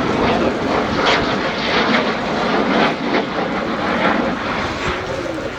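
Aircraft engines running as an aircraft flies past, giving a loud continuous rush of noise.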